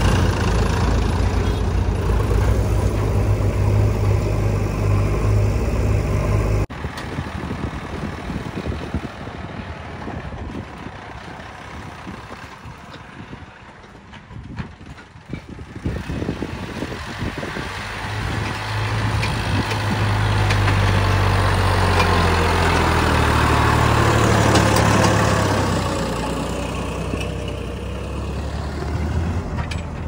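Sonalika DI 42 RX tractor's diesel engine running, loud and close at first. After a sudden cut about seven seconds in it is fainter, then grows louder again from about eighteen seconds as the tractor drives, hauling its loaded trolley.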